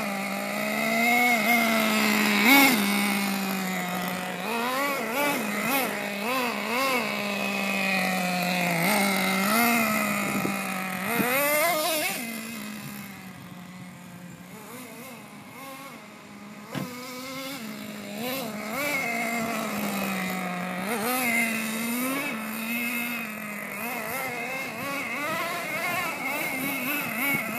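Team Associated MGT 3.0 RC monster truck's small nitro engine running, holding a steady pitch and then revving up and down again and again as the truck is driven. It is quieter for a few seconds in the middle as the truck moves away.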